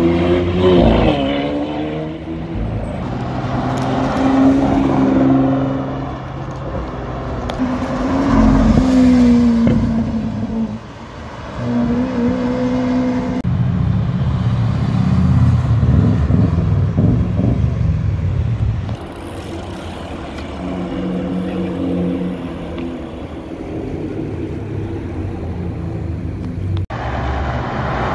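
Several short clips of performance cars revving and accelerating past, with sudden cuts between them. Near the start a Lamborghini Aventador SV roadster's V12 revs and pulls away. A red Subaru Legacy estate follows, and near the end a Ferrari California T's twin-turbo V8 comes through.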